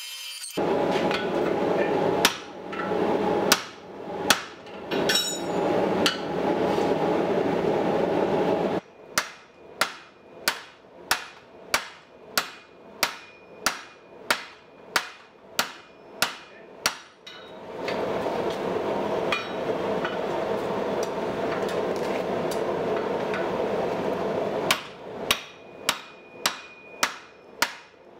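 Hand hammer striking a handled top tool set on red-hot steel over a steel swage block: runs of sharp, evenly spaced metal-on-metal blows, a little under two a second. These alternate with stretches of a steady roar from the forge burner that start and stop abruptly.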